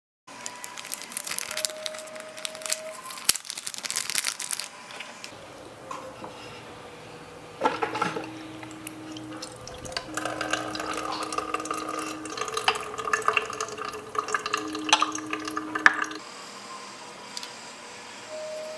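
Water running from a miniature toy-kitchen faucet into a tiny metal sink as a small ceramic dish is rinsed, with light clinks and taps of the dish.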